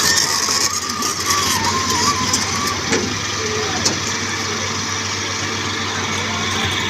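Heavy diesel machinery running steadily with a constant low engine hum, a wavering higher tone over the first few seconds and a couple of short knocks, typical of an excavator and dumper truck working at a recovery site.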